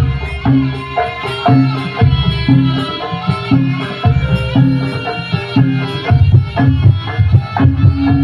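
Jaranan (kuda lumping) accompaniment music: Javanese hand drums beating a steady rhythm, about two strokes a second, under a melody of pitched gamelan-style percussion.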